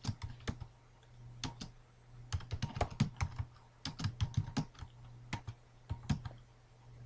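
Computer keyboard keystrokes typing out a command, in short irregular runs of clicks with brief pauses, the longest about a second in. A steady low hum runs underneath.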